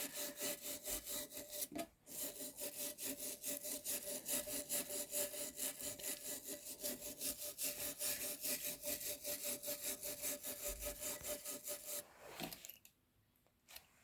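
Hand wire brush scrubbing rust off a cast iron pipe vice in rapid, even back-and-forth strokes. There is a short break about two seconds in, and the brushing stops near the end.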